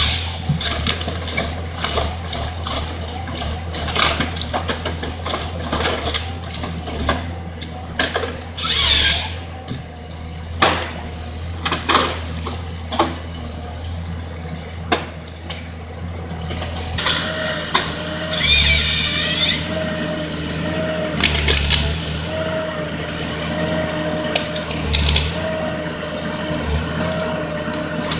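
Timberjack forestry harvester at work: its diesel engine runs steadily under a string of knocks and wood cracks from the harvester head handling trees, with several short, loud, high-pitched bursts of the head's chainsaw cutting through stems. A steady wavering whine joins in past the middle.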